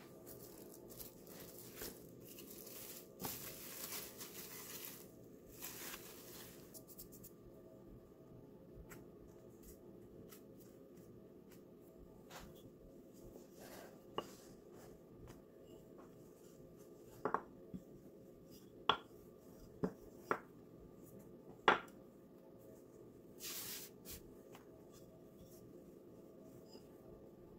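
Cling film crinkling as dough balls are wrapped in it, then a wooden rolling pin working dough on a wooden countertop, with several sharp knocks midway through. Quiet throughout.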